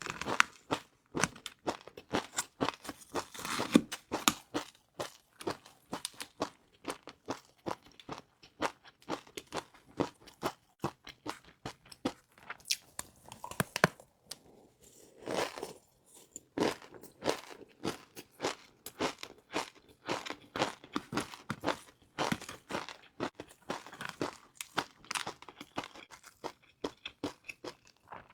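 Close-miked eating of crispy fried noodles: a steady run of sharp, crisp crunches as they are bitten and chewed.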